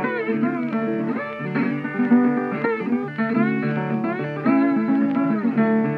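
Instrumental background music led by guitar, with many notes sliding up and down in pitch.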